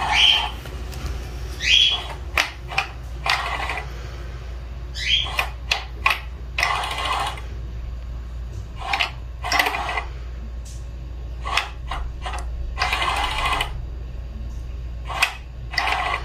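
Battery-powered Crazy Donut cat toy running, its motor turning a feather around inside the round plastic housing. There is a steady low hum, with short scraping rattles every second or two.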